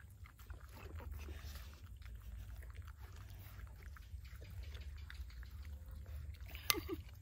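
Pug dog eating from a plate, with faint small wet clicks of lapping and chewing. One sharper click comes near the end.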